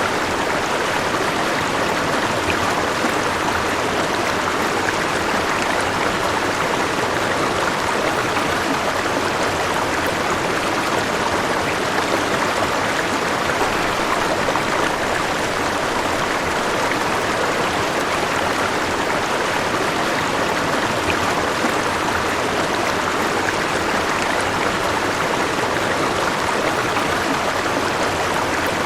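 River water flowing steadily, a continuous even rush.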